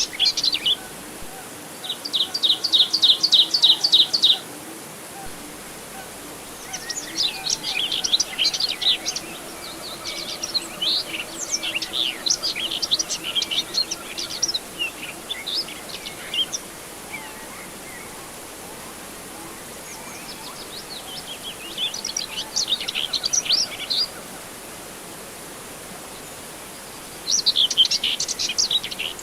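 Birds chirping in bouts of quick, high chirps and chatter with short pauses between. About two seconds in there is a fast, even trill of roughly eight notes a second. A steady faint hiss runs underneath.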